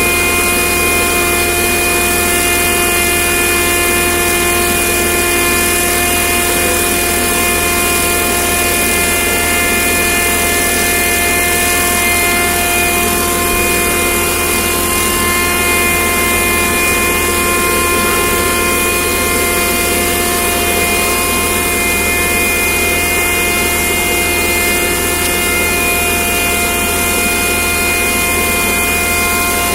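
A machine's engine or motor running steadily at one constant speed, with an even hum.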